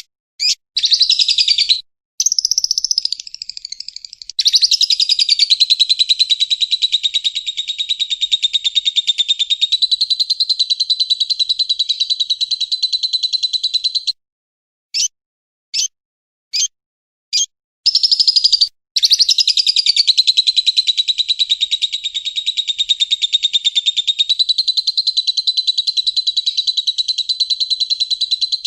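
Lovebird chattering: a very rapid, unbroken trill held for about ten seconds, the long 'ngekek' chatter. A little past halfway it breaks into a few short sharp chirps before a second long trill starts.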